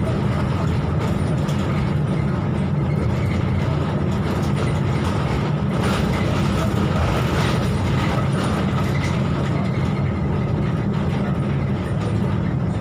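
Steady drone of a Volvo B12BLE city bus under way, heard inside the cabin: its rear-mounted six-cylinder diesel running, with road noise. There are a few brief rattles about six and seven and a half seconds in.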